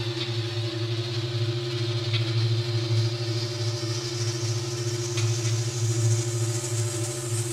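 Electronic synthesizer drone: a steady, fast-pulsing low hum with a held tone above it, under a hiss that slowly rises in pitch.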